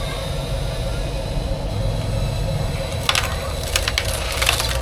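Small electric motors and gearboxes of toy RC construction vehicles running steadily with a thin whine, then a burst of clicking rattles from about three seconds in.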